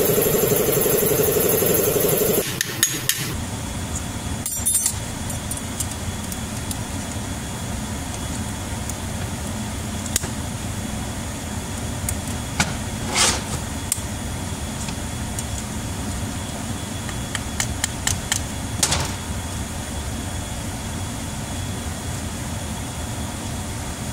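Scattered metal taps and clinks on the steel parts of a new IH torque amplifier quill gear assembly as it is tapped and worked into place, over a steady low shop hum. A loud steady machine noise runs at first and cuts off suddenly about two seconds in.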